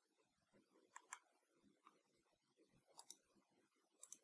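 Faint computer mouse button clicks, three quick pairs of clicks spaced a second or two apart, over near-silent room tone.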